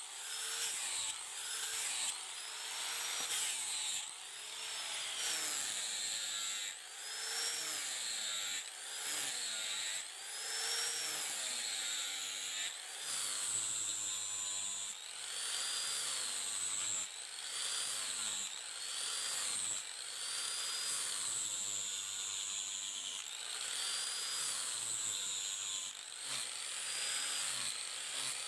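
Electric power tool working steel in repeated strokes, its whine rising and falling in pitch about once a second as it is pressed on and eased off the metal.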